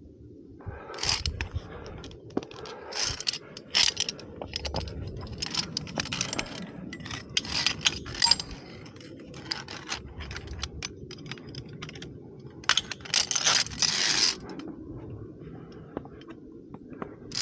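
Via ferrata carabiners clinking and scraping against the steel safety cable and each other as the climber moves along the route. It comes in irregular clicks and short scrapes, with a longer scrape near the end.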